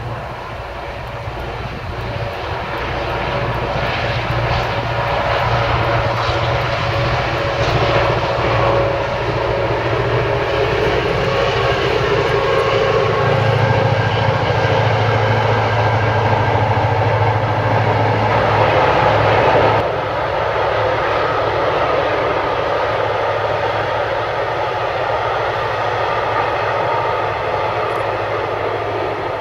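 Two GM-engined MY-class diesel locomotives running under load with a cement train, their two-stroke diesel engines giving a loud, steady drone. It grows louder over the first dozen seconds, drops abruptly about twenty seconds in, then carries on a little quieter.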